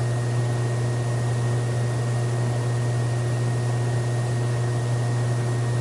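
Steady low hum with a faint high whine and hiss, unchanging throughout; no footsteps or other distinct sounds stand out.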